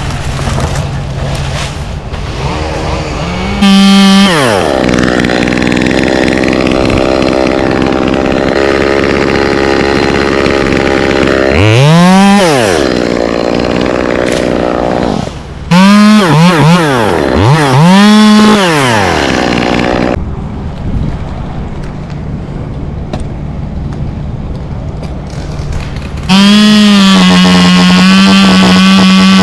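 Chainsaw cutting up a queen palm. It is revved up to full throttle and let back down several times, with a quick run of revs in the middle. Near the end it is held steady at full throttle.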